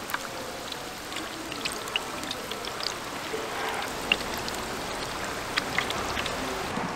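Battered fritters deep-frying in a large wok of hot oil: steady sizzling with scattered pops and crackles.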